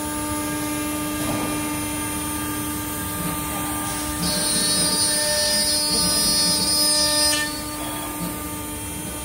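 AccTek CNC router spindle running with a steady whine while its bit mills into an MDF sheet. From about four seconds in, the cutting grows louder and shriller for about three seconds, then eases back.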